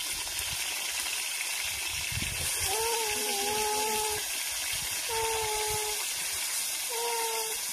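Pieces of rohu fish sizzling in hot oil in an iron karahi. Three long calls at a steady pitch sound over the sizzle, the first about a second and a half long and the other two shorter.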